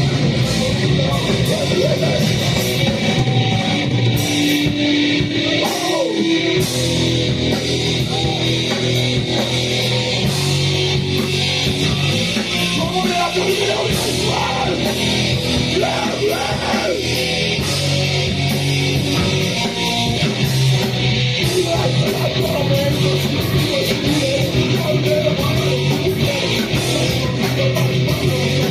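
Live band playing loud, distorted heavy rock: electric guitar, bass and drums with vocals, dense and unbroken.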